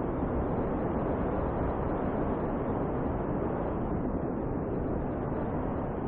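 Snowstorm wind blowing steadily: an even, low rushing noise with no separate gusts or breaks.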